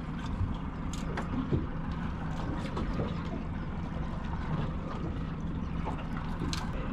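Boat outboard motor idling steadily, a low even hum, with a few light clicks.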